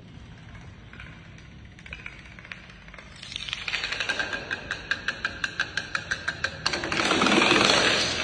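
Plastic dominoes toppling in a chain: a faint clatter at first, then a run of sharp clacks about five a second from about three seconds in, swelling into a dense, loud rattle near the end as many fall together.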